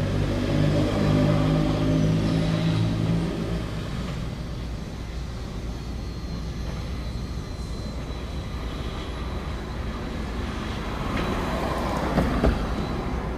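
Heavy construction machine's engine running, with a steady droning tone for the first three or four seconds that then fades into a lower rumble. A brief clatter comes near the end.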